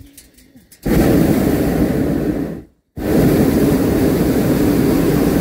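Hot air balloon's propane burner firing overhead, a loud steady roar that starts suddenly about a second in, cuts out for a moment near the middle and comes straight back on.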